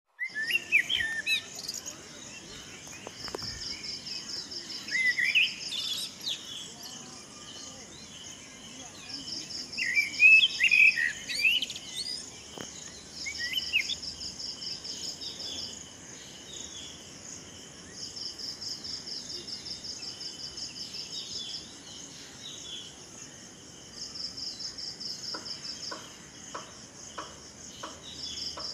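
Birds chirping in short bursts of rising and falling notes, loudest about ten seconds in, over an insect's fast pulsing trill that comes and goes in bouts of a few seconds. A few soft ticks near the end.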